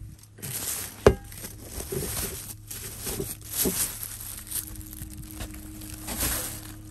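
Rustling and handling of clutter in a truck cab, with plastic bags crinkling and a sharp knock about a second in, over a faint steady hum.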